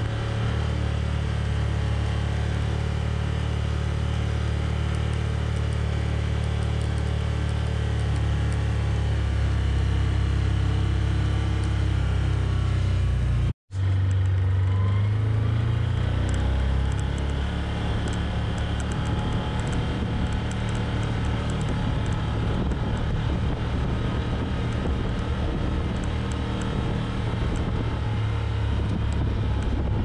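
Can-Am Commander side-by-side UTV engine running steadily while the machine drives along. The sound drops out for an instant about halfway through, and just after that the engine note rises briefly before settling again.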